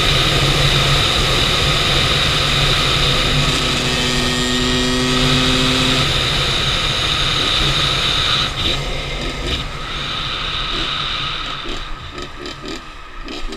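Kawasaki dirt bike engine running steadily at highway speed, with heavy wind rush on the handlebar-mounted camera. About eight seconds in, the steady engine note falls away and the sound turns quieter, uneven and choppy.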